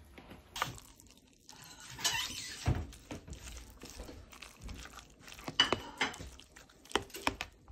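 A metal spoon stirring a thick batter of grated pumpkin and vegetables in a plastic mixing bowl, with irregular scrapes, clinks and knocks of the spoon against the bowl.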